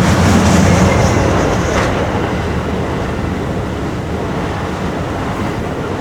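Amtrak passenger train led by a P42DC locomotive passing on the main line, its rumble loudest in the first second and slowly easing off, with a few sharp clicks about two seconds in. Strong wind buffets the microphone throughout.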